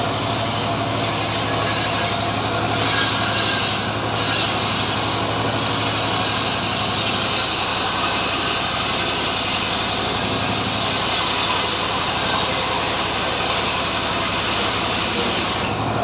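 Homemade engine-driven ripping saw (gergaji srekel) running steadily under load, sawing teak. The high hiss of the cut thins out near the end while the engine keeps running.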